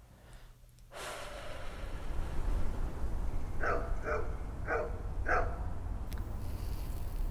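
A dog barks four times in quick succession, about half a second apart, over a low steady rumble that starts suddenly about a second in.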